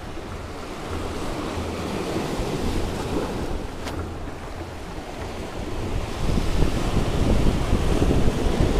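Sea surf breaking and washing over shoreline rocks, with wind buffeting the microphone; the surf grows louder over the last few seconds.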